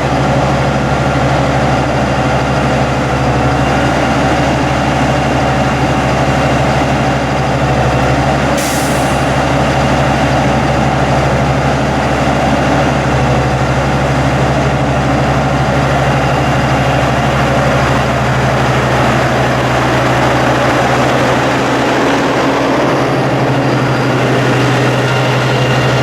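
Heavy truck's diesel engine running steadily at raised throttle, around 1,800–2,000 RPM, to drive the hydro-excavator's high-pressure water system. A brief hiss comes about eight and a half seconds in.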